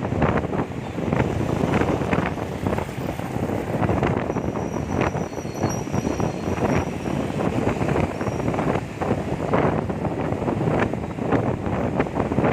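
Wind buffeting the microphone on a moving motorbike, over the motorbike's engine and the surrounding road traffic, with gusty rises and dips in the noise.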